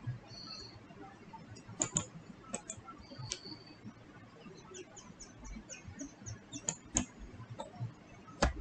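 A few sharp clicks of a computer mouse, the loudest near the end, with faint small ticks in between.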